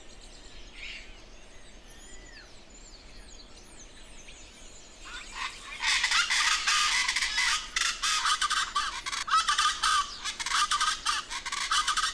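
Faint high bird chirps at first. About five seconds in, rufous-vented chachalacas (guacharacas) break into a loud chorus of rapid, repeated calls.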